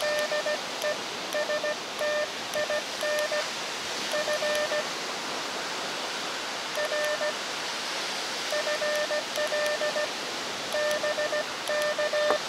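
Morse code (CW) sidetone from an Elecraft KX2 transceiver: one steady pitched tone keyed into dits and dahs by a hand paddle, in several groups with short pauses, sending a contact exchange of a 5NN signal report, a name and a location. A steady hiss runs underneath.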